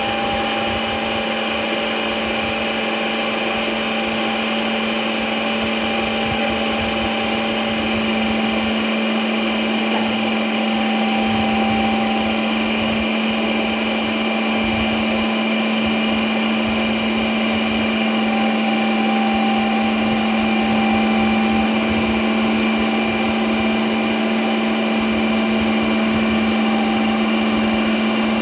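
Ninja Creami ice cream maker running its Ice Cream program, its motor driving the spinning blade down through a frozen pint: a loud, steady whir that holds one pitch throughout.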